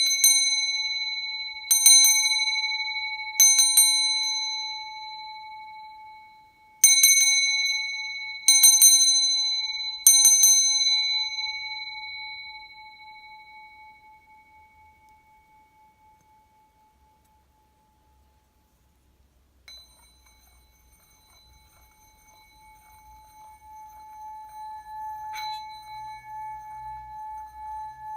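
A 90 mm Nepalese bell is struck five times, twice and then three times, each strike ringing with a clear high tone that dies away over several seconds. About twenty seconds in, it is rubbed around the rim like a singing bowl, so that a steady tone swells slowly with a pulsing wobble.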